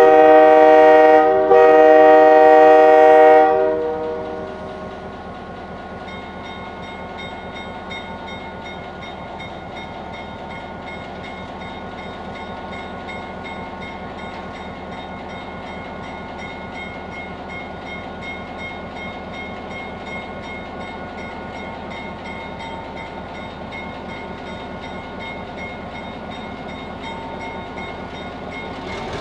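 Horn of a GP9 diesel locomotive sounding two blasts, the first about a second and a half and the second about two seconds. Then the locomotive's EMD 567 diesel engine runs with a steady drone.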